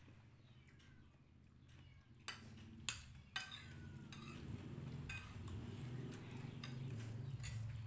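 Metal spoons clinking and scraping against plates and bowls as people eat, with three sharp clinks about two to three and a half seconds in. A low hum runs underneath and grows louder toward the end.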